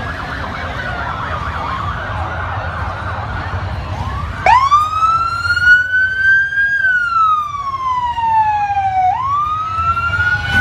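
Emergency vehicle siren. A faint, fast up-and-down yelp gives way about four seconds in to a loud wail that rises, falls slowly and rises again, over a steady low rumble.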